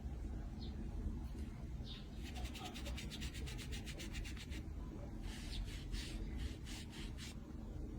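Quick scratching strokes, about ten a second for a couple of seconds starting about two seconds in, then a slower run of about five a second, over a steady low hum.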